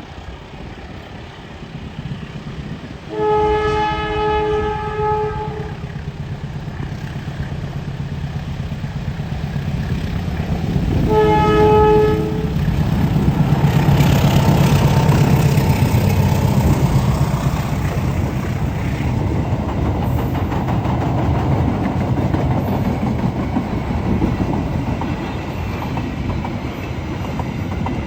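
Diesel locomotive's multi-tone horn sounds twice, a long blast about three seconds in and a shorter one about eleven seconds in. The train then runs past, engine rumbling and wheels clicking rhythmically over the rail joints.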